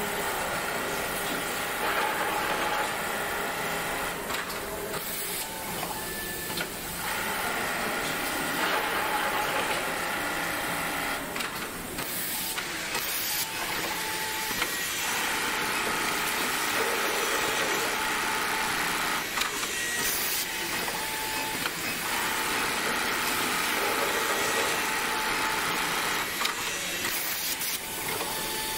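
Automatic elastic band cutting-and-joining sewing machine (JYL-B6050-XJ) running: a steady mechanical whine whose tones shift now and then, broken by a few short noisy bursts.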